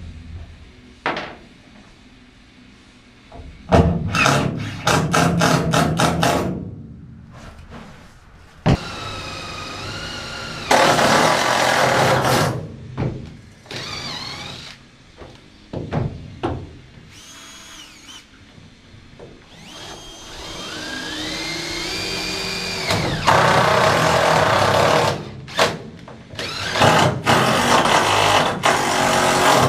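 Cordless impact drivers and a drill working through UHMW poly into an aluminum boat hull. Bursts of rapid impact hammering come about four seconds in and again near the end. In between, a drill motor whines, rising and falling in pitch, alongside stretches of drilling noise.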